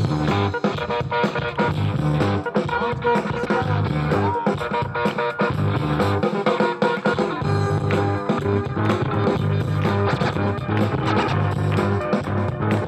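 Music played by the DJ through PA speakers, with a steady beat and a repeating bass line.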